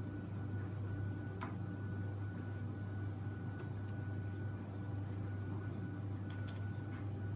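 Steady low hum with a faint steady high tone, and a handful of light clicks, some in quick pairs, as small plastic toys are handled.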